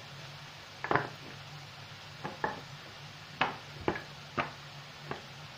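Ceramic spice jars and their lids being handled, giving about seven sharp clinks at uneven intervals over a faint low hum.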